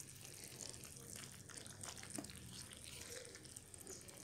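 Faint liquid sounds of a coconut-milk curry with tofu and long beans being stirred with a spatula as it simmers in the pan, with small scattered pops and drips.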